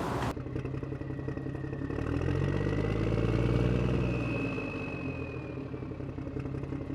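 Cordless impact tool running with a rapid rattle and a whine that builds to a peak about halfway through and then eases off, as it spins out the oil pump bolts on a Ford 360 FE engine block.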